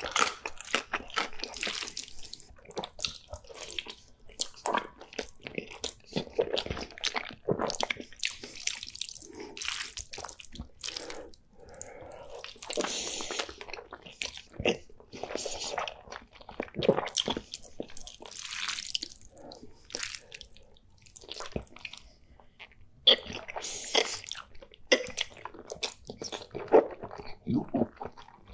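Close-miked eating sounds: chewing and slurping of thick noodles and sauce-covered dumplings eaten by hand, an irregular run of sticky clicks and sucking noises.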